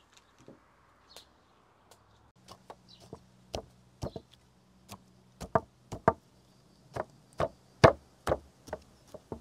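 Knife chopping incisions into a raw lamb forequarter: a run of sharp knocks about two a second, starting a couple of seconds in and getting louder toward the end.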